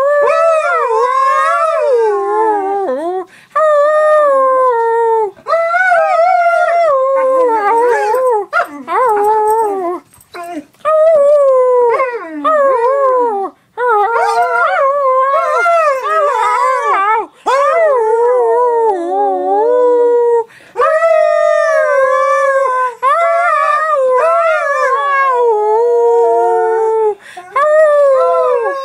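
A husky-type dog howling and 'singing' in long wavering notes that slide up and down in pitch. It breaks off for brief breaths every few seconds and starts up again.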